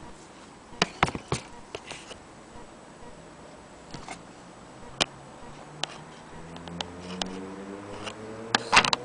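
Scattered sharp clicks and knocks of hands handling an antique Willcox & Gibbs sewing machine, the loudest cluster near the end. From about two-thirds through, a low steady droning hum joins in underneath.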